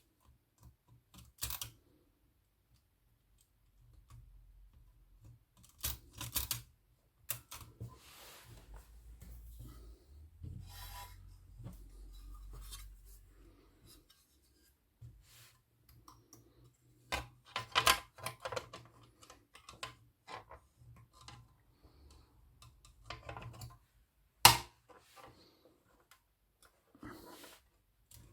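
Olivetti Lettera 22 manual portable typewriter mechanism being worked by hand: scattered, irregular metallic clicks and clacks in small clusters rather than a steady typing rhythm, with one sharp clack standing out about three-quarters of the way through.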